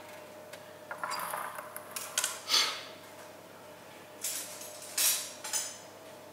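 A handful of short, scattered handling noises, about six of them, spread over a few seconds, from someone moving about at a kitchen counter and fetching things.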